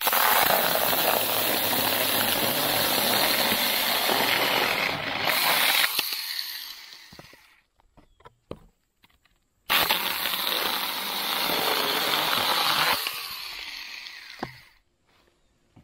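Battery-powered Avhrit 6-inch mini chainsaw cutting through a branch in two runs. The first lasts about six seconds and dies away, then after a short gap the second lasts about four seconds and trails off as the motor winds down.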